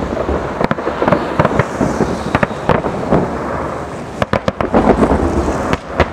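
Aerial firework shells bursting in rapid succession: sharp bangs over a continuous dense crackle, with a quick cluster of bangs a little past the middle.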